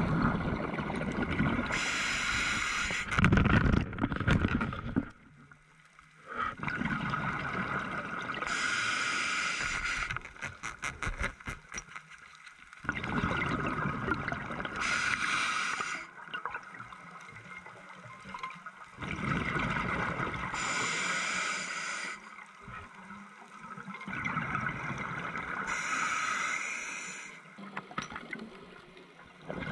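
A diver breathing underwater through a regulator: loud hissing, bubbling breaths about every six seconds, with quieter bubbles gurgling between them.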